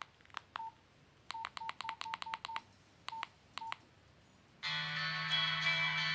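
Nokia 101 mobile phone keypad being pressed, about a dozen key clicks, each with a short beep, several in quick succession. About four and a half seconds in, a ringtone starts from the phone's speaker, with a held chord.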